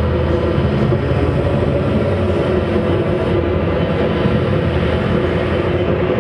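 Loud, dense, sustained drone from a live band's amplified instruments: a thick wall of noise over held low tones, steady and with no clear beat.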